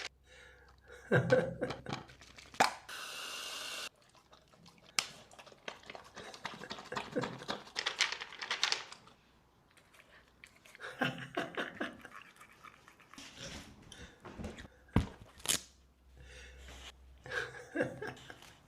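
A dog's small sounds mixed with scattered clicks and crunching noises, and a brief steady hiss about three seconds in.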